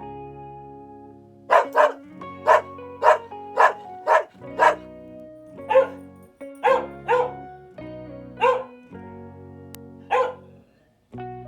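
A dog barking in short, sharp barks, about a dozen of them, irregularly spaced, starting about a second and a half in. Background music plays throughout.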